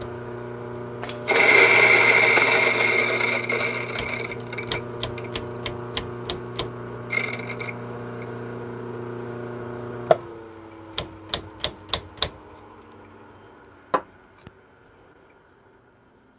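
Electric coffee grinder running with a steady motor hum. A loud gritty grinding of beans comes in about a second in and lasts a few seconds, then regular light ticks. About ten seconds in it is switched off and the motor falls in pitch as it spins down, followed by a few sharp taps.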